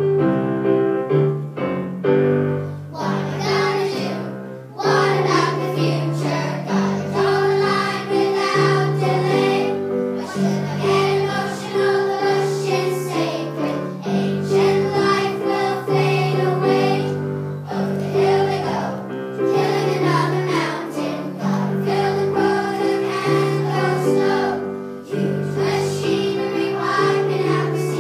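A choir of children singing a song with piano accompaniment. A short piano introduction is heard first, and the singing comes in about three seconds in.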